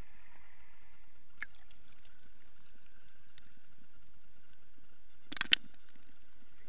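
Kayak paddling with the camera at the waterline: a steady faint hiss, then a short splash of water about five seconds in.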